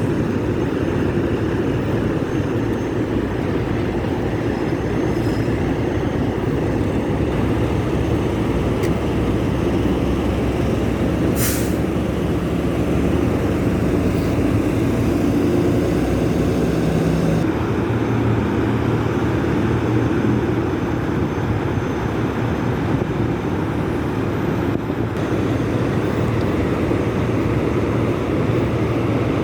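Diesel semi-truck engines running steadily, with one short, sharp air-brake hiss about eleven seconds in.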